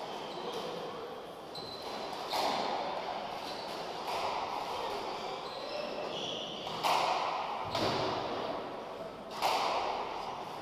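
Squash rally: the ball is struck by rackets and smacks off the front wall, a sharp crack about every two seconds that rings in the enclosed court. Between the hits come short high squeaks of sports shoes on the wooden floor.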